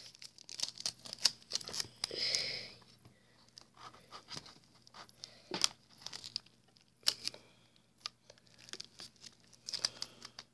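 Clear Scotch tape being pulled off the roll with a short ripping stretch about two seconds in, and paper crinkling in scattered crackles and clicks as the tape is wrapped around a stuffed paper pouch.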